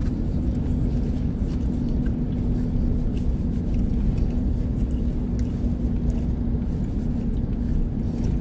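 Steady low rumble of a running vehicle, with a constant hum throughout.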